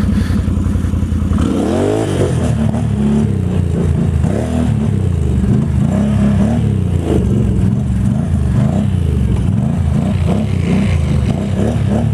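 Can-Am Renegade ATV engine running while being ridden, its pitch rising and falling repeatedly as the throttle is worked. There is a sharp rev-up about two seconds in.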